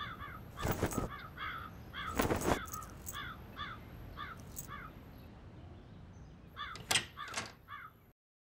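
Crows cawing over and over in short calls, with a few louder, harsher calls standing out about a second in, a couple of seconds in and near the end; the sound cuts off abruptly just before the end.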